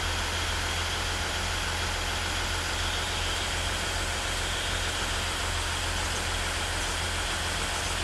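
Diesel engine idling: a steady low hum with an even hiss over it, unchanging throughout.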